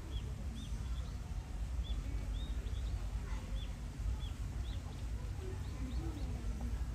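A small bird calling repeatedly with short, high chirps, about two a second, over a steady low background rumble.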